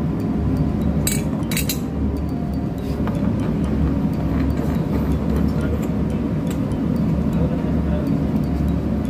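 Steady low machinery drone, with two sharp metallic clinks about a second in as the steel bowl and cover parts of a Yanmar centrifuge oil filter are handled.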